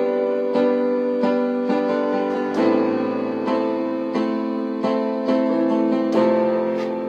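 Music: a piano or electric piano playing chords, with notes struck about every half second, fading out near the end.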